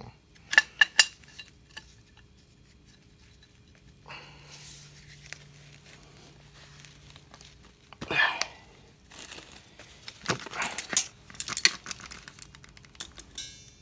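Metal hand tools clinking and scraping against an aluminium power steering pump as locking pliers and a large adjustable wrench are fitted onto it. There are sharp clicks about half a second in, a low rustle of handling from about 4 s, a scrape near 8 s, and a run of clinks from about 9 s.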